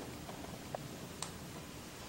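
Faint room noise with two or three light clicks.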